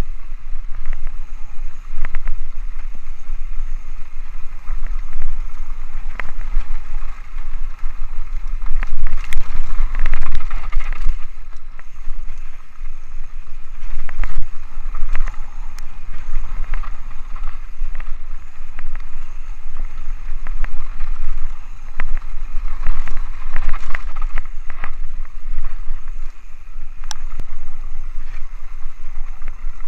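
Wind buffeting the action camera's microphone over the clatter of a Rocky Mountain Altitude mountain bike riding a dirt singletrack: tyres on dirt and gravel, with frequent knocks and rattles as it goes over bumps.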